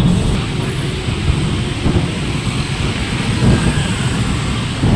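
Road traffic noise in slow, heavy city traffic: vehicle engines and tyre noise over a steady, heavy low rumble.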